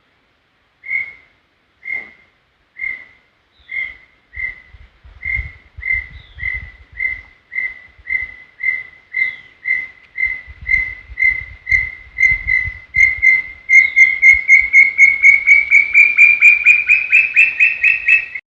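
Brown tinamou singing its song: a series of clear whistled notes that starts slow, about one a second, then speeds up, grows louder and rises slightly in pitch until the notes run together near the end, then stops abruptly.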